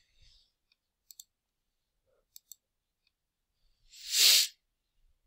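Computer mouse clicks, a quick pair about a second in and another about two and a half seconds in. About four seconds in comes a short, loud rushing noise lasting about half a second.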